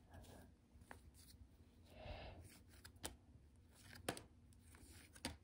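Faint handling of a stack of paper trading cards, cards slid one by one from the front of the stack to the back, giving a few light ticks and a soft rustle about two seconds in.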